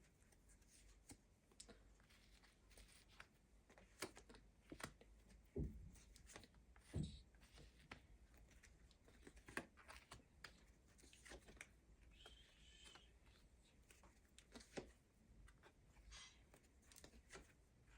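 Faint rustling and soft taps of tarot cards being shuffled and laid out, with a few sharper clicks between about four and seven seconds in.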